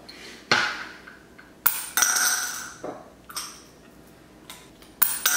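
Quarters bounced off a counter and clinking into a drinking glass: a sharp tap about half a second in, then two clinks that ring on for about a second, near two seconds in and near the end.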